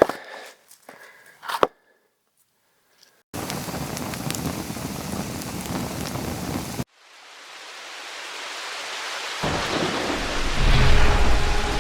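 A few sharp knocks, then steady rain hissing for a few seconds before cutting off abruptly. Rolling thunder then builds up, becoming a loud low rumble near the end.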